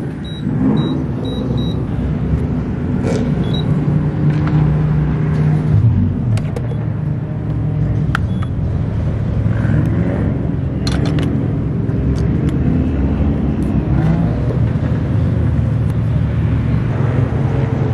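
Car engine idling steadily at the gas pump, with four short high beeps from the pump keypad as buttons are pressed in the first two seconds, then a few scattered sharp clicks as the fuel nozzle is handled.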